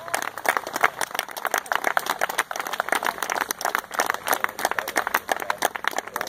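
A few people clapping their hands in steady, irregular applause.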